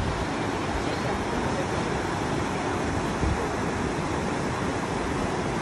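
Steady rush of a fast-flowing river over rapids, whitewater churning over rocks.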